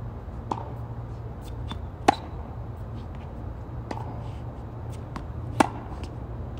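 Tennis rally on a hard court: two loud racket strikes on the ball, about three and a half seconds apart, with softer pops of ball bounces and the far player's shots between them. A steady low hum runs under it all.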